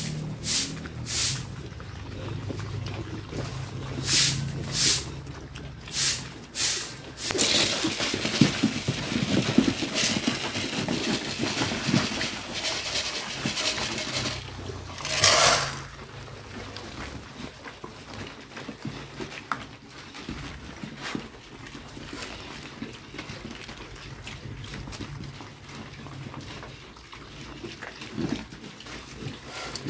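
Weaned piglets at the feed trough. Sharp squeals come in quick pairs during the first seven seconds, with one more around fifteen seconds in. Between them is a stretch of jostling and feeding noise, and it settles to quieter munching later on.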